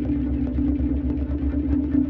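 Electronic synthesizer drone from Arturia's Moog Modular V3 software synth: a steady held tone over a low, unevenly pulsing throb.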